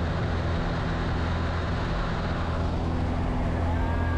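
Engine of the skydiving jump plane running with a steady drone and low hum.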